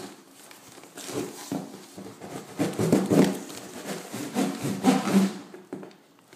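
Packing tape being pulled and torn off a cardboard box in several uneven pulls, with cardboard rubbing and scraping.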